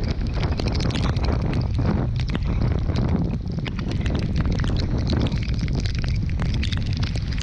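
Squall-force wind buffeting the microphone in a loud, uneven rumble over rushing, breaking seas, with many sharp ticks of rain and spray striking the camera.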